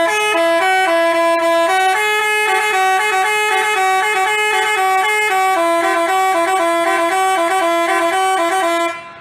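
Basuri telolet bus horn, a multi-tone electric horn, playing a quick tune of stepped notes that cuts off abruptly near the end.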